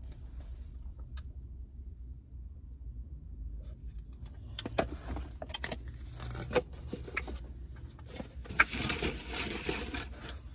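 Clicks, taps and scraping from a plastic food container and its lid being handled. These grow busier about halfway through, with a louder rustling scrape near the end, over a low steady hum.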